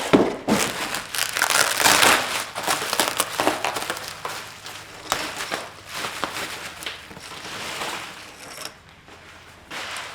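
Plastic packaging crinkling and rustling in irregular bursts as a replacement front grille is unwrapped, dying down near the end.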